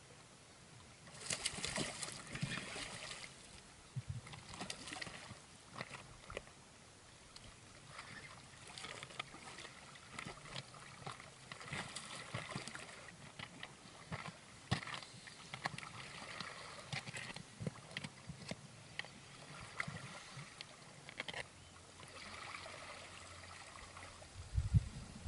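Sea water lapping and sloshing against the rocky shore, with many small sharp clicks and splashes scattered through it and a low thump near the end.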